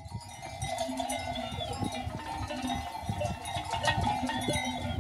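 A dense, continuous jangle of many sheep bells clanking and ringing together as a flock of sheep moves.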